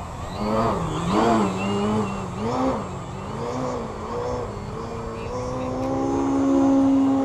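Radio-controlled model airplane's motor and propeller taking off from the beach: the pitch wavers up and down for the first few seconds, then climbs to a steady higher drone that is loudest near the end.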